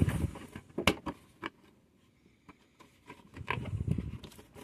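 Hands handling a cardboard toy box: a few sharp taps and knocks about a second in, then soft rustling and scraping of the cardboard near the end.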